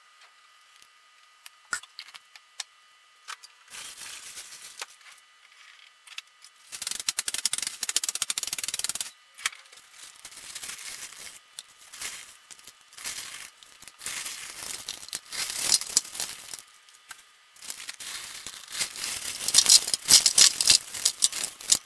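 Ice rattling and clattering in a plastic bag and tumbling out onto the dye-covered shirt, in several bursts that get loudest near the end. A few light clicks come before it.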